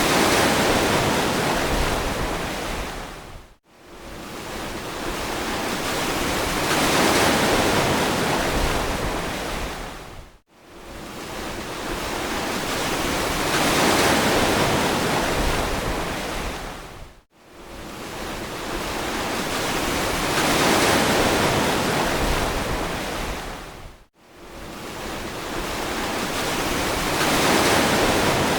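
Ocean surf washing ashore in regular swells about every seven seconds, each building up to a hiss and then falling away abruptly to a brief silence.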